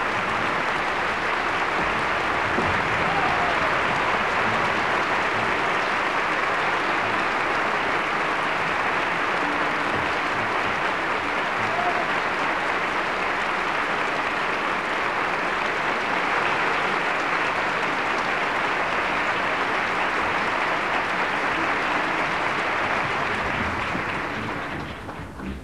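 A large audience applauding steadily, a dense even clapping that fades out near the end.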